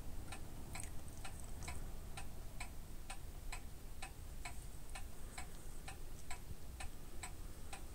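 Clock ticking steadily, about two ticks a second, over a faint low hum.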